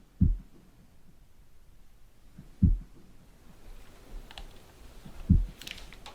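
Deep, slow thuds from a horror film's soundtrack, three of them about two and a half seconds apart, over a faint hiss that slowly builds. Light clicks come in near the end.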